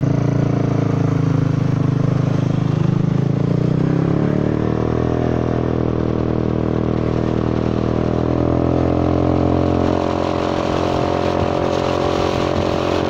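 Honda Forza 300 scooter's single-cylinder engine and exhaust under way on the road, rising in pitch as it speeds up about four seconds in and then holding a steady drone at cruise, with wind rush. The rider says the exhaust is broken and sounding abnormal.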